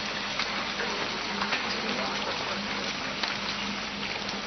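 Smouldering wreckage of a bombed building hissing steadily, with scattered faint crackles and a faint low hum underneath.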